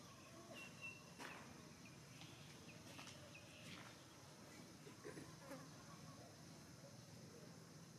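Near silence: faint insect buzzing in the background, with a few short, high chirps and soft clicks.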